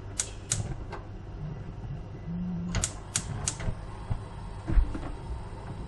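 Gas hob's spark igniter clicking as the burner is lit: two runs of three quick, sharp clicks about a third of a second apart, the second run about three seconds in.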